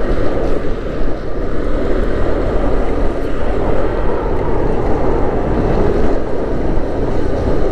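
Motorcycle riding along a road at speed: steady, loud wind noise on the microphone mixed with engine and road noise.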